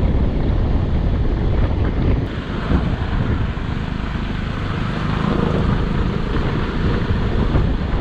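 Wind buffeting the microphone of a moving motorcycle, loud and steady, with the bike's running noise beneath it.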